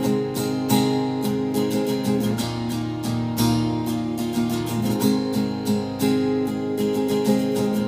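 Acoustic guitar strummed in a steady rhythm, chords ringing on without singing.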